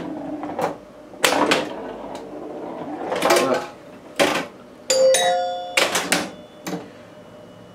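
Stern Memory Lane pinball machine in play: a run of sharp clacks from the ball and the solenoid-driven playfield parts. Near the middle, several bell-like tones ring out and fade.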